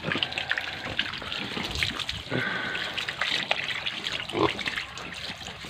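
Water splashing and trickling over a pig and the pen floor as the pig is rinsed, while the pig gives two short calls, about two and a half and four and a half seconds in.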